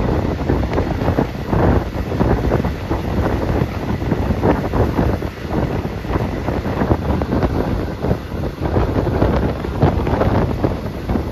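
Wind buffeting the microphone: a loud, uneven rush that surges and falls in quick gusts.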